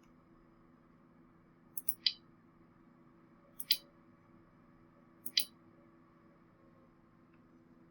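Three quick double clicks of a computer pointing-device button, about a second and a half to two seconds apart, over a faint steady electrical hum.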